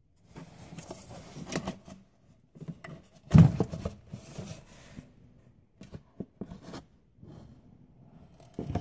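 Plastic-and-rubber engine air intake duct being handled and pulled aside by hand: irregular scraping, rustling and clicking, with one louder knock about three and a half seconds in.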